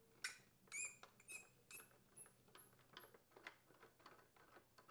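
Screwdriver unthreading the fan-cover screws on an Echo PB580T leaf blower's frame: faint clicks of the driver and screws, with a few short squeaks as the screws turn in the first couple of seconds.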